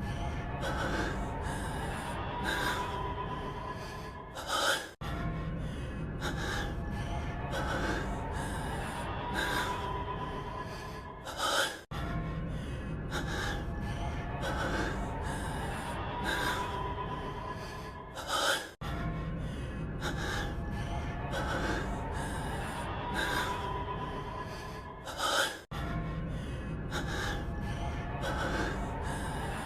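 A man's heavy breathing and gasps from an anime voice clip, looped about every seven seconds. Each loop holds several quick breaths and ends in a louder, sharper gasp just before it restarts.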